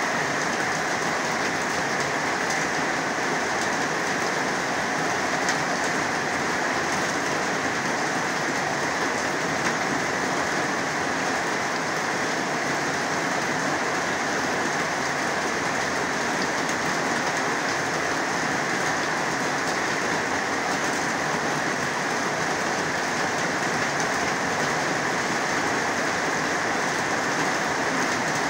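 Heavy rain falling steadily, an even dense hiss with no let-up.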